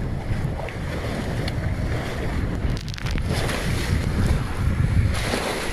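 Wind buffeting the microphone over the rush of choppy sea water past a small sailing catamaran under way.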